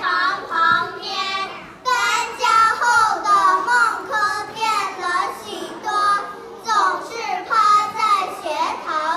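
Young children singing together in Chinese.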